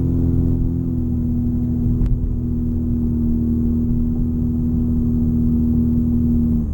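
Straight-piped 2017 Honda Civic Sport's 1.5-litre turbo four-cylinder, heard from inside the cabin, holding a steady exhaust tone at light cruise. The tone sinks slightly, then cuts off suddenly near the end.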